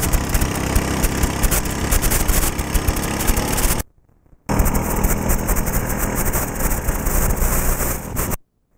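ATV engine running under way, with heavy wind buffeting the body-worn wireless microphone. The sound cuts out completely twice, for about half a second near the middle and again near the end: the wireless link dropping out at long range.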